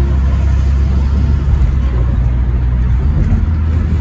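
Steady low rumble of a car driving at highway speed, heard from inside the cabin: engine and tyre noise.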